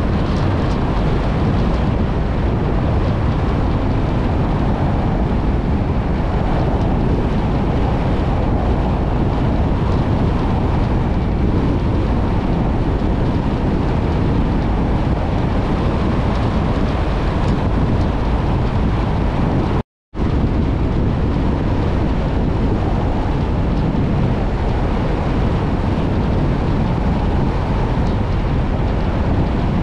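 Steady rumbling road noise from a vehicle driving on an unsealed dirt road: tyres on the loose gravel surface mixed with wind. The sound cuts out completely for a moment about two-thirds of the way through.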